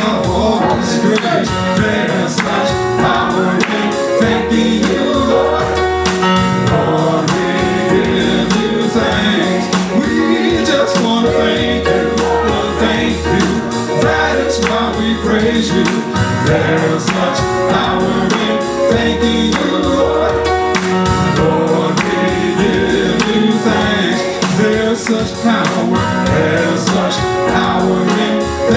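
Live gospel praise-and-worship music: a band playing with a steady beat, with voices singing over it.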